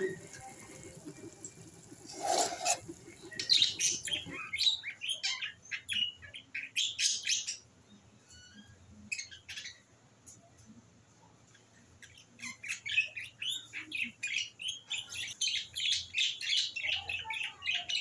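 Small birds chirping and twittering in rapid runs, starting about three seconds in, easing off around the middle, and picking up again at about twelve seconds.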